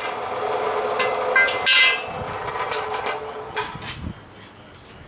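Steel frame pieces being worked and handled: a rough, steady scraping noise for about the first two seconds, then several sharp metal knocks.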